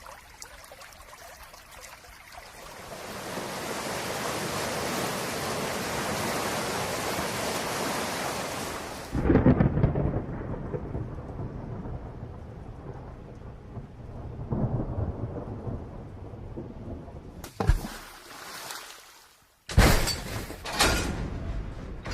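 Rain hiss that swells and then cuts off. It gives way to a loud crack and long rolling rumble of thunder, with a further sudden loud bang near the end of the rumble. After a brief silence, a new series of sharp, loud sounds begins near the end.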